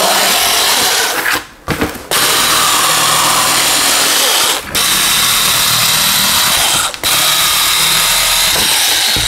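Cordless electric mini cutter running and slicing through cardboard boxes. It runs in four long stretches, stopping briefly three times as the blade is dragged along and restarted.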